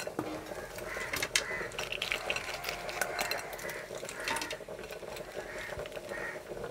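Raw blue crab pieces being dropped and pushed by hand into a clay pot of fried masala. The hard shells make irregular clicks and knocks against each other and the pot, over a faint steady hum.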